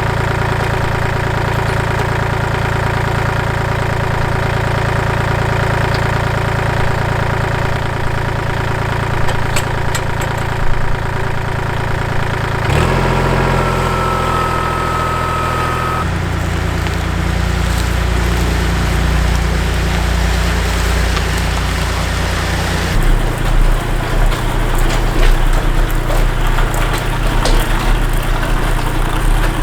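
Kubota L2501 compact tractor's diesel engine running, its sound changing abruptly a few times. A high steady whine joins it briefly about 13 seconds in. There is more clatter toward the end.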